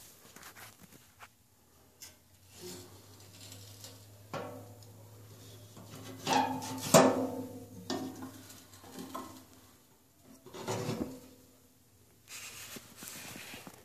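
Scattered metallic scrapes and clunks from a rocket stove's steel shaker grate being worked by its spring-wrapped handle, loudest about six to seven seconds in. A low steady hum runs under the middle stretch.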